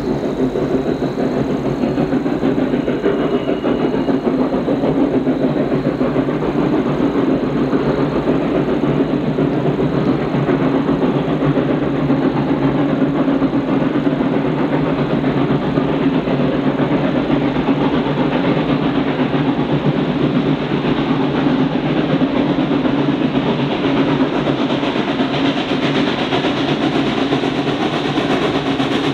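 Everett Railroad No. 11 steam locomotive working steadily as it approaches, its exhaust and running gear a dense, continuous noise that grows brighter in the last few seconds as it nears.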